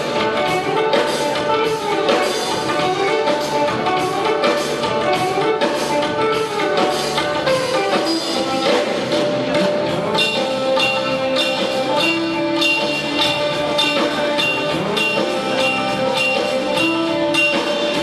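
Live fusion rock band playing, with pitched instrumental lines over a steady, busy percussion rhythm.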